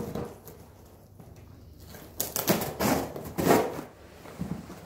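Packing tape being cut and ripped off a cardboard shipping box: several short, crackling tears, the loudest in the second half.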